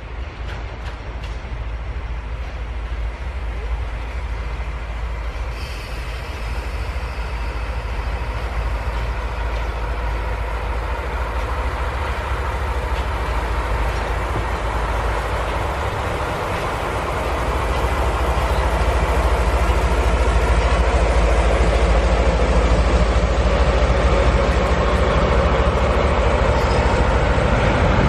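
A train running on the track, with a steady rumble of wheels on rails that grows louder about two-thirds of the way through as it comes closer.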